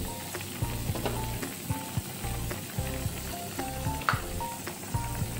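Snakehead fish stew in sweet soy sauce boiling hard in a pot, a steady crackling bubble over light background music.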